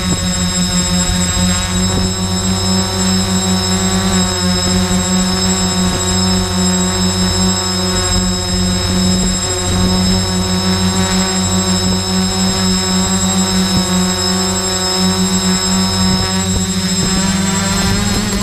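Quadcopter's electric motors and propellers humming steadily, heard from the copter's own onboard camera, with a low fluttering drone and several steady high-pitched electronic whines above it.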